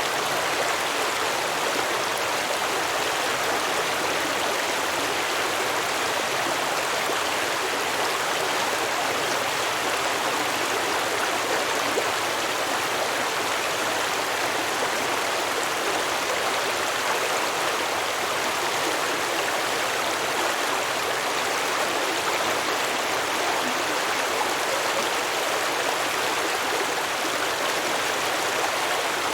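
A shallow stream running over rocks, a steady even rush of flowing water.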